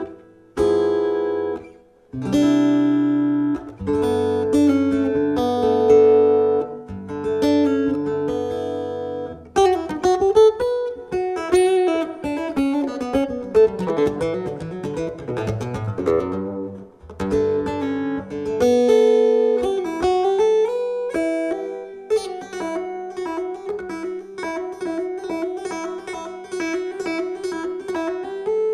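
Bourgeois steel-string acoustic guitar played through its pickups. Chords are strummed and held for the first ten seconds or so, then quicker single notes and a repeating picked pattern follow.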